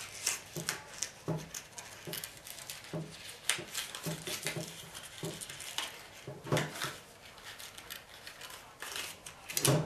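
Hands working a paper label tag off the end of a monopod: scattered small rustles, clicks and taps, with a louder knock about six and a half seconds in and another near the end.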